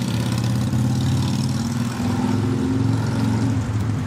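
A motor vehicle engine running at low revs, a steady low drone whose pitch rises a little about two seconds in and settles again.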